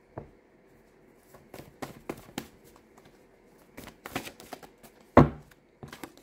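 Tarot cards being handled and laid down on a table: a scatter of light clicks and taps, with one louder knock about five seconds in.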